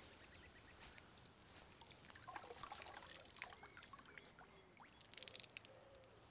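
Water quietly splashing and trickling in a bucket as a wet cloth is worked in it by hand, with a brief flurry of splashes and drips about five seconds in.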